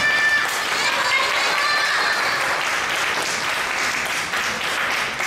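Audience applauding steadily as the music ends, with a few voices over it.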